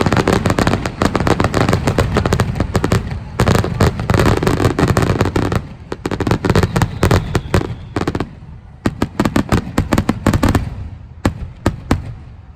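Aerial fireworks exploding in a rapid, dense barrage of bangs and crackles. The bangs thin out about ten seconds in, leaving a few separate last reports.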